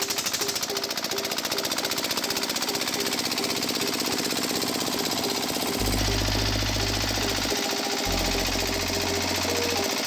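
Rapid, steady mechanical clatter, like a small motor-driven model machine running, over background music whose deep bass notes come in about six seconds in.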